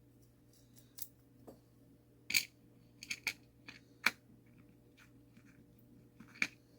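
Small metal clicks and clinks of nuts and tools being handled while the nuts are fitted to a mantel clock movement's plates: a series of sharp, separate clicks, the loudest a little over two seconds in.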